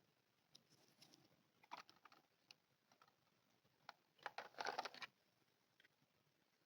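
Small plastic clicks and taps as miniature toy pieces and packaging are handled, with a short burst of crinkly rustling about four seconds in.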